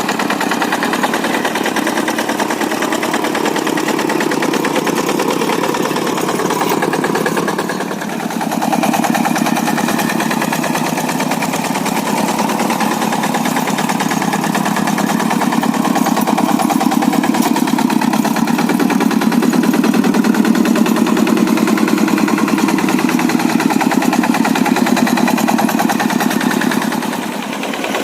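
Quick G100 hand tractor's Kubota single-cylinder diesel engine running with a fast, even thumping beat. It dips briefly about eight seconds in and again near the end, and is louder through the second half.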